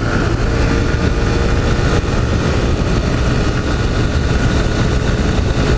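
Honda CG 160 Fan motorcycle's single-cylinder four-stroke engine running at a steady cruising speed on the road, its pitch holding level.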